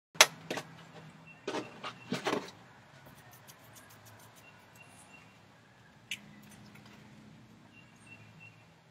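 Several sharp knocks in the first two and a half seconds, the first the loudest, then faint scattered clicks and one more knock about six seconds in.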